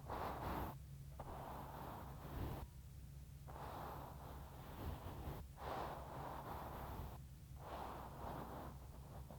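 Fluffy ASMR ear-cleaning brush swept over a microphone ear: soft rushing strokes, each about a second long, with short pauses between them.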